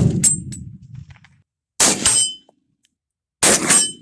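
Gunshots at a steel target, each followed a fraction of a second later by the steel plate clanging and ringing. One hit rings out at the very start, then two more shots come about a second and a half apart, each with its clang.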